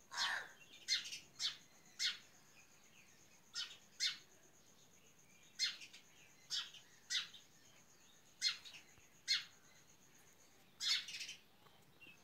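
Bird chirping: a dozen or so short, high calls at irregular intervals, with a quick run of calls near the end.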